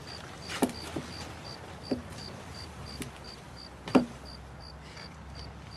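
Crickets chirping in a steady pulse, about three chirps a second, with a few scattered footsteps on hard ground; the loudest step comes about four seconds in.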